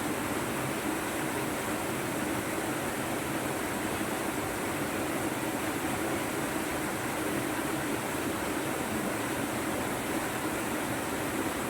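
Steady rush of fast-flowing river water at a waterfall, an even wash of noise with no change.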